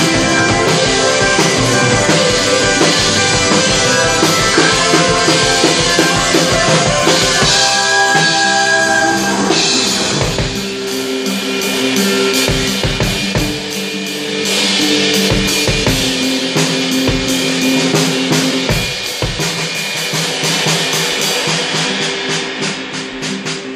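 Live band music: a drum kit with electric guitar and held, sustained notes. About ten seconds in the dense texture thins out to separate drum strikes over the held notes, and near the end a quick run of drum strokes comes as the music dies down.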